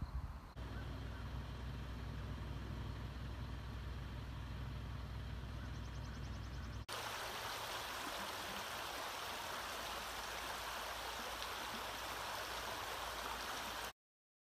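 A steady low rumble with some hiss, then an abrupt cut about seven seconds in to a shallow rocky creek running over stones, an even hiss of flowing water. The sound stops dead about a second before the end.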